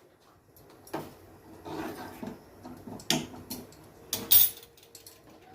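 Scattered light knocks, clicks and rustles of kitchen utensils and containers being handled, the loudest a sharp clack about four seconds in.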